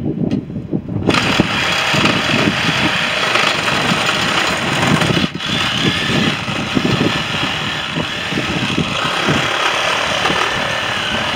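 A loud motor or engine-driven machine starts abruptly about a second in and keeps running with a steady, rough noise.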